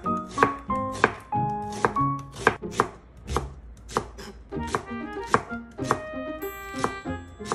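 Chef's knife slicing onion and then Korean green onion (daepa) on a wooden cutting board, each cut ending in a knock of the blade on the board, about two a second. Light background music plays underneath.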